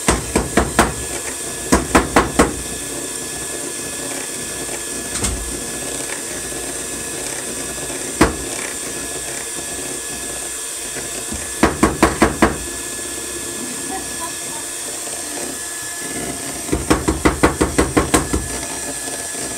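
A hammer pounding a plastic bag lying on a table, crushing what is inside. The blows come in quick bursts of about five to ten, with a few single blows between, over a steady hiss.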